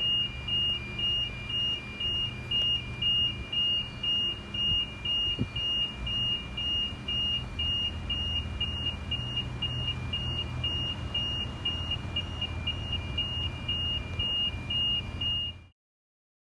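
Level crossing electronic warning bell beeping steadily, about two high beeps a second, over a low rumble. The sound cuts off suddenly near the end.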